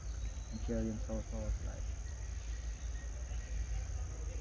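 Insects chirring faintly and steadily over a steady low rumble. A person's voice is heard briefly about a second in.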